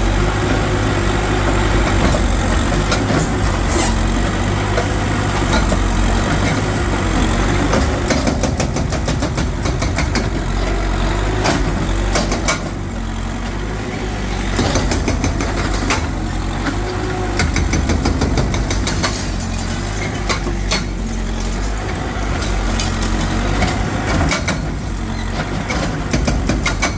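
Heavy diesel engine of demolition machinery running steadily, its pitch rising and falling, with clusters of sharp knocks and cracks, densest from about eight to twelve seconds in and again later on.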